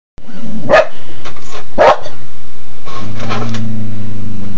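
A dog barking loudly at a printer: two barks about a second apart, then fainter short yips. A steady low hum comes in about three seconds in.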